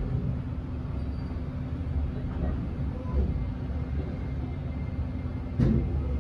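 Inside an E653 series electric train moving off from a station: a steady low running rumble with a faint even hum, and a single sharp knock of the wheels over a rail joint about five and a half seconds in.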